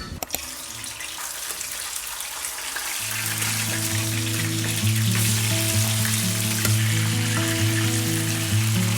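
Food sizzling as it fries in a pan, a steady hiss, with a couple of sharp clicks right at the start. Instrumental background music with a steady bass comes in about three seconds in.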